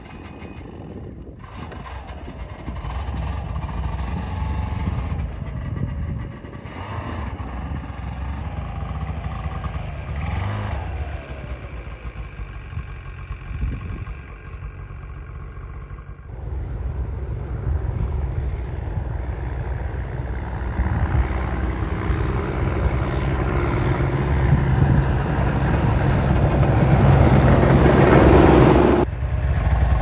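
Ski-Doo snowmobile engine running and revving, its pitch rising and falling several times, with a few abrupt breaks. It grows louder and fuller toward the end.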